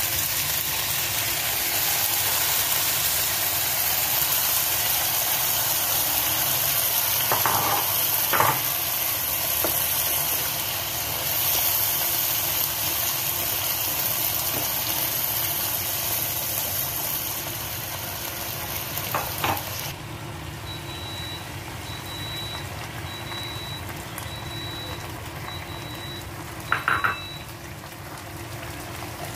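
Chinese-style eggplant stir-fry sizzling in a frying pan in its sauce, with a spatula knocking against the pan a few times. The sizzle drops off sharply about two-thirds of the way through, and then a run of short high beeps comes about once a second.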